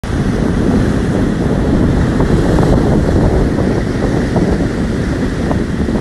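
Ocean surf breaking and washing over rocks in a steady, loud rush, with wind buffeting the microphone in a heavy low rumble.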